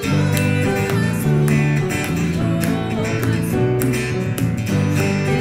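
Music: an acoustic guitar strummed in a steady rhythm.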